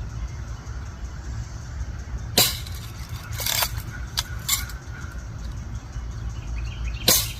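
BB gun fired twice, about two and a half seconds in and again near the end, with a few smaller clicks and a short scraping sound between the shots. A steady low rumble lies underneath.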